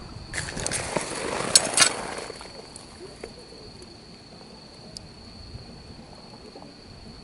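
Shallow seawater splashing and sloshing for about two seconds, with two sharp clicks near the end of it, then only faint stirring. A thin, steady high whine runs underneath.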